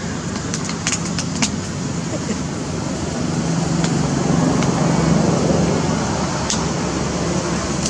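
A steady low hum of background noise that swells between about three and six seconds in, with a few sharp clicks in the first couple of seconds and one more later.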